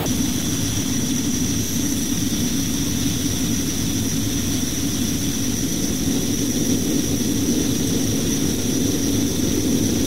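Gas torch flame hissing steadily as it heats the hub of a radial fan's impeller, which has seized onto the motor shaft. The flame picks up right at the start.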